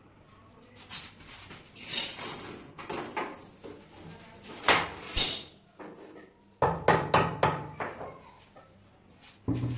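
Marble slabs being shifted and set in place by hand: stone scraping and knocking on stone, with a few sharp knocks, the loudest about halfway through and a cluster a little later.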